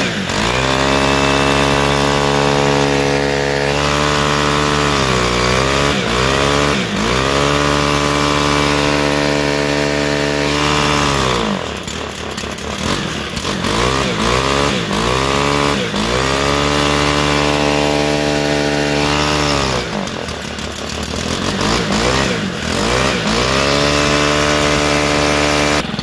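Stihl FS-111 string trimmer's small 4-MIX engine running at high throttle, its revs sagging and picking back up several times. It is running rough because leaked fuel has soaked the air filter; pressing the primer is meant to raise its power.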